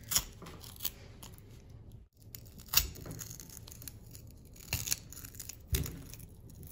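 Tongue-and-groove pliers crushing and breaking off pieces of an XT60 connector's plastic housing on a controller circuit board: about five sharp cracks and snaps spread a second or so apart, with rustling handling noise between.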